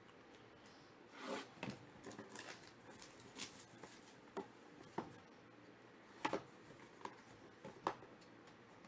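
Shrink-wrapped cardboard trading-card box being handled: faint rustling and crinkling of the plastic wrap about a second in, then scattered sharp taps and clicks as the box is turned over.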